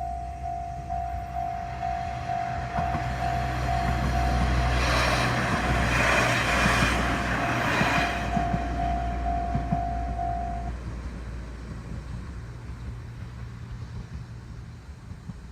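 A level crossing alarm rings a steady repeated ding while a KiHa 40 diesel railcar approaches and passes, its engine rumbling and its wheels clattering over the rails, loudest about halfway through. The alarm stops about two-thirds of the way in, and the engine sound fades as the railcar goes away.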